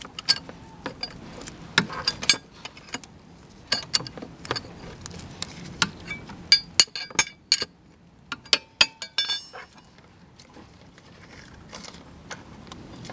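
Metal-on-metal clinking and clicking of a spark plug socket and wrench on a Suzuki Address V100 scooter. The tools are worked back and forth in small turns on a plug that is stuck tight and not yet turning. The clicks come irregularly in clusters, densest a little past halfway, and stop about ten seconds in.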